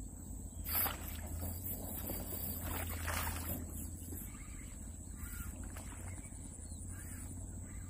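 Surface lure for snakehead being jerked and popped across the water by the rod: a sharp splash about a second in and a longer splashing stretch around three seconds, over a low wind rumble.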